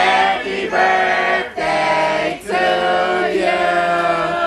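Many voices singing together in long held notes, with a few short breaks between phrases.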